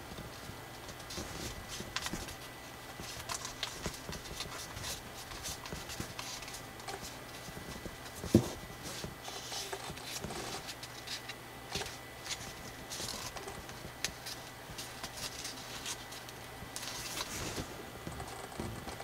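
Thick colored drawing paper rustling and crackling as it is folded and creased by hand, in a string of small crinkles and clicks. One sharp knock about eight seconds in is the loudest sound.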